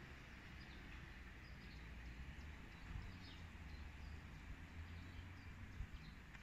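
Faint outdoor ambience: small birds chirping here and there over a low rumble, with a couple of soft knocks.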